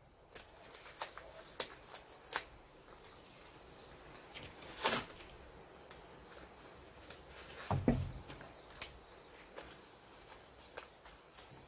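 Masking tape and paper rustling and crinkling as gloved hands lay it and press it down, with scattered small clicks. There is a louder rustle about five seconds in, and another with a low bump near eight seconds.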